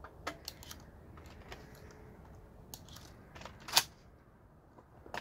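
Scattered light metallic clicks of guns being handled and loaded, with one sharper, louder clack a little under four seconds in.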